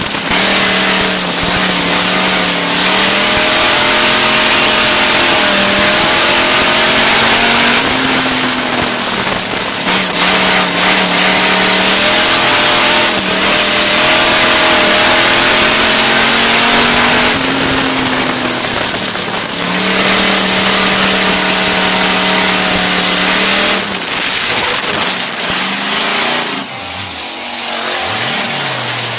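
Dirt-track race car's engine heard from inside the car, its pitch rising and falling again and again as the driver gets on and off the throttle around the oval, over a loud steady rush. Near the end the engine note drops and the sound turns quieter and uneven.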